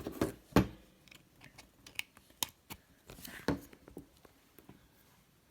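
Modified USB plug and Garmin unit being handled and plugged in: a few sharp clicks with light rustling between them, the loudest click about half a second in.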